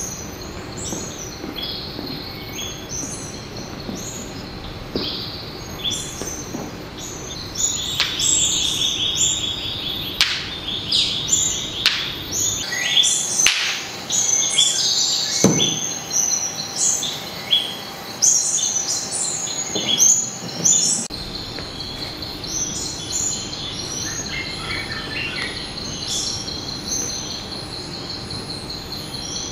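Birds chirping and calling: many short, varied chirps and whistles over a steady high buzz, busiest in the middle.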